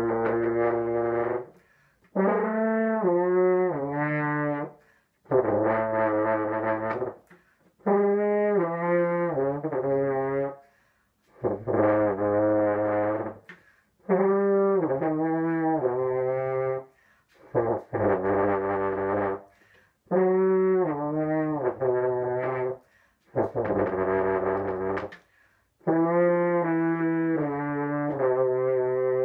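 French horn played solo through a cool-down embouchure exercise: short slurred phrases of a few sustained notes stepping up and down, each phrase two to three seconds long, with a brief breath pause between phrases.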